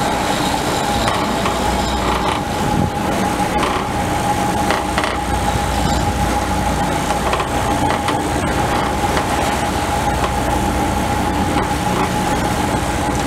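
Sportfishing boat's engine running steadily underway, with the wake rushing and a steady whine running through it.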